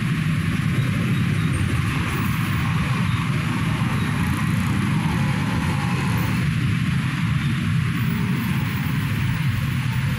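Diesel locomotive engine running with a steady low rumble, as during a shunting move.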